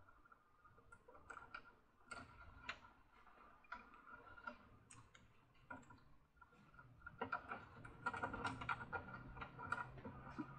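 Faint clicks and taps of plastic parts being handled as the toy carousel's rotor is fitted back onto its centre shaft, growing busier and louder in the last few seconds.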